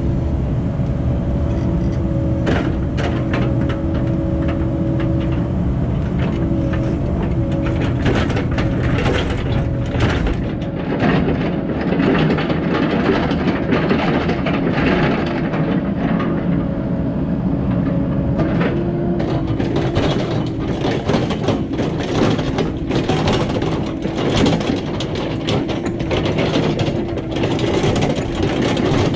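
Cat 308 excavator's diesel engine running steadily under load. From about ten seconds in there are dense, repeated clanks and rattles of metal and gravel.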